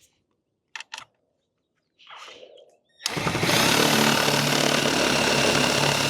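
Cordless impact driver running a self-tapping screw into an RV awning's fabric roller tube, starting about three seconds in and running steadily for about four seconds, its hammering action speeding the screw in. A few faint clicks and handling sounds come before it.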